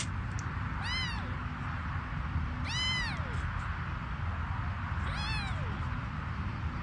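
Kitten meowing three times, each call about half a second long and rising then falling in pitch, over a steady low rumble.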